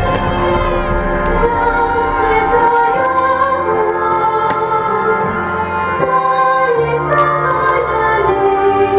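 Background music: a singing voice holds long, wavering notes over sustained accompanying chords that change every second or two.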